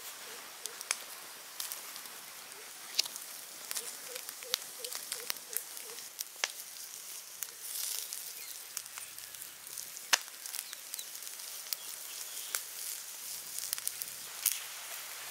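Wood fire crackling, with scattered sharp pops over a steady hiss.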